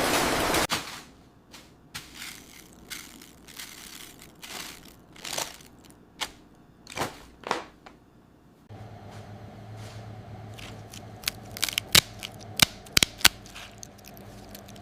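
Irregular crisp crunching and crinkling, in scattered bursts. About nine seconds in a steady low machine hum starts, with a run of sharp clicks over it.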